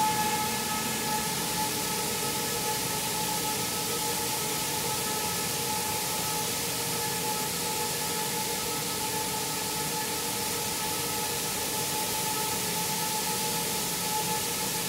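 Rice milling machinery running steadily: a constant hiss with a few steady whining tones over it.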